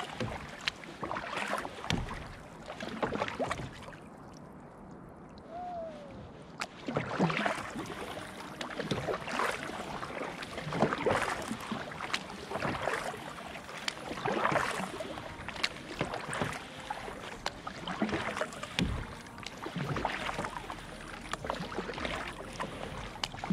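Kayak paddle strokes on the sea: water splashing and dripping off the blade in a steady rhythm, about one stroke every second and a half, with a short lull a few seconds in.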